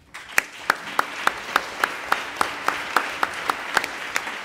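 Audience applauding, rising just after the start, with one close, loud pair of hands clapping about three to four times a second over the steady patter of the rest.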